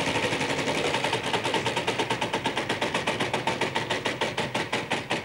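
Game-show prize wheel spinning, its pointer flapper clicking against the pegs in a quick even run that spreads out as the wheel slows down.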